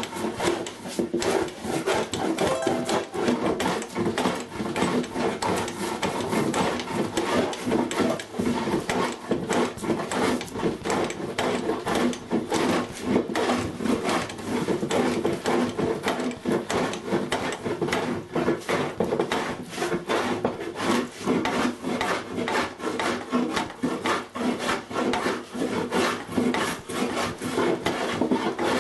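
A hand tool rasping or scraping across pallet wood in a continuous run of quick, repeated strokes.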